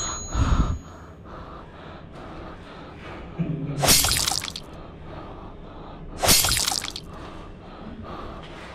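A person gasping twice, two sharp, breathy intakes of breath about two and a half seconds apart, after a low thud near the start.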